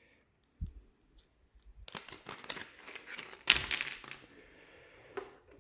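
Plastic packaging crinkling and rustling as small parts are taken out of it, loudest past the middle, after a soft thump about half a second in.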